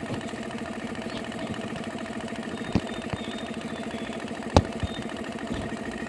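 Half-horsepower MEC belt-driven air compressor, pump and electric motor running steadily as it pumps the tank pressure up past about 90 psi. Two short knocks partway through, the second louder.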